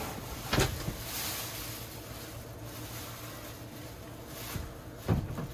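Clear plastic packaging bag rustling and crinkling as a toilet is lifted out of it and handled, with two sharper crackles, about half a second in and near the end.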